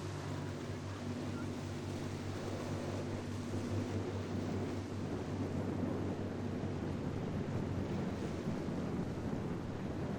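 Boat engine running with a steady low drone, mixed with the wash of water and wind noise on the microphone.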